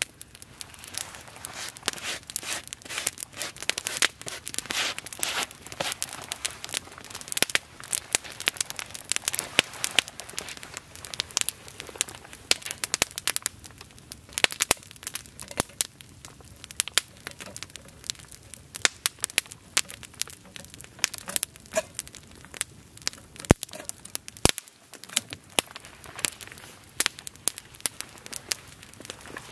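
Open wood campfire crackling and popping, with sharp snaps several times a second.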